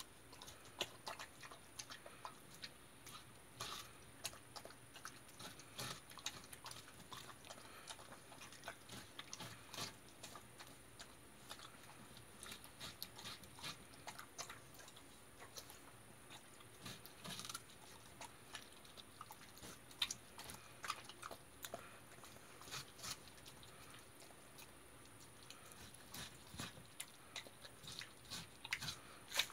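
Jindo dog chewing watermelon rind: a steady run of faint, irregular crunches and bites.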